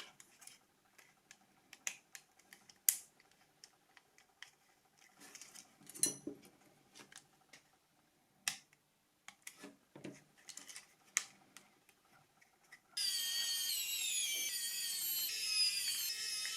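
Sharp clicks and light taps of small plastic parts of a Nokia 5510 phone being handled and fitted together. About three-quarters of the way in, a small power tool starts up with a steady high whine that falls in pitch again and again.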